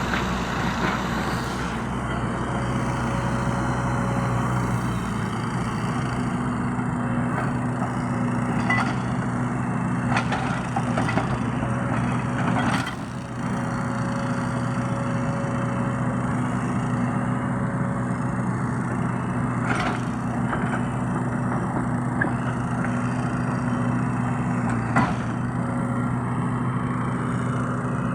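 Hydraulic excavator's diesel engine running steadily under work, with a few sharp knocks spread through it.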